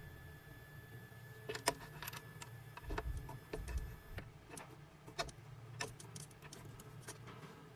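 Small metal clicks and light rattles of a car key being handled in a key-cutting machine's clamp, over a low steady hum. A faint high whine stops about four seconds in.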